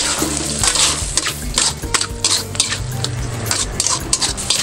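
A metal spatula scraping and knocking against a wok in quick, irregular strokes, stirring fried tofu and shrimp through a sambal sauce that sizzles underneath.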